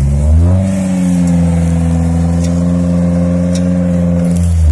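Chevrolet Niva off-road car's engine revving up about half a second in and held at steady high revs for several seconds, then dropping off sharply at the end.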